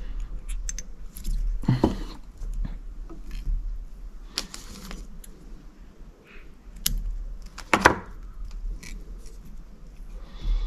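Small clicks, taps and short rustles of fly-tying tools and materials being handled, the sharpest cluster about eight seconds in, over a low steady hum.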